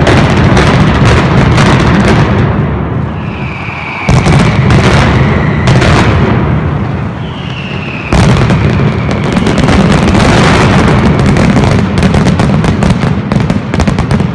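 Mascletà firecracker barrage: a dense, continuous rattle of detonations, very loud, dipping and then surging back to full strength about four and eight seconds in. Two long, slightly falling whistles run through it, starting about three and seven seconds in.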